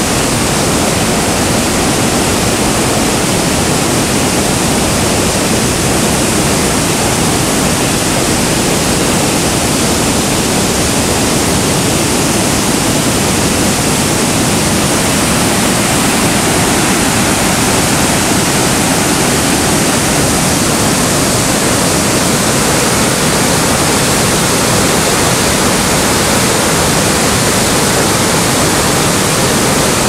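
Loud, steady rushing of a river's whitewater rapids and cascades pouring over rocks, unbroken throughout.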